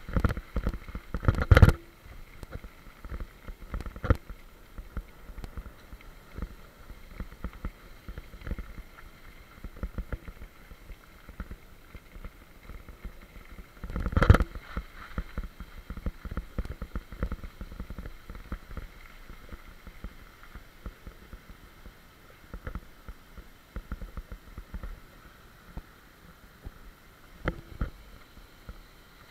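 Mountain bike rolling fast down a gravel track: tyres crunching over loose stones and the bike rattling with every bump, with two heavy jolts, about a second and a half in and again about fourteen seconds in.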